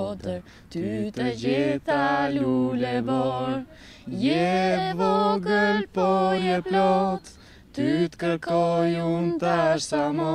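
Unaccompanied a cappella singing: voices holding steady notes in phrases, with short pauses between them.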